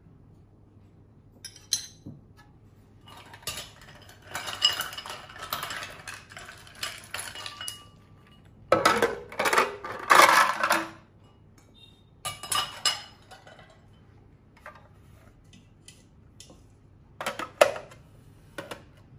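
Ice cubes clattering into a juicer's plastic juice jug, tipped from a metal cup, with clinks of metal and glass: bursts of clinking and rattling, loudest about halfway through, with a few single clicks near the end.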